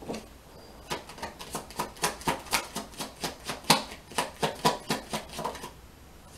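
A deck of oracle cards being shuffled by hand: a quick run of sharp card slaps, about four a second, that stops near the end.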